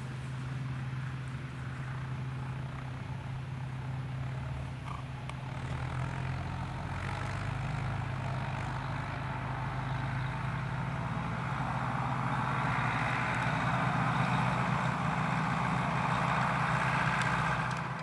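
Tractor's diesel engine running as the tractor drives past, a steady engine note that grows louder through the second half and cuts off suddenly at the end.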